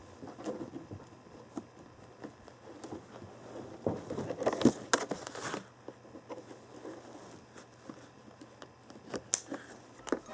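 Scattered sharp clicks of nail clippers cutting a kitten's claws, amid rustling from handling the kitten. The rustling is louder for a stretch about four to five and a half seconds in.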